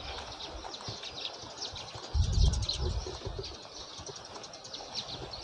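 Small birds chirping busily in quick, high twitters, with a low rumble for about a second starting about two seconds in.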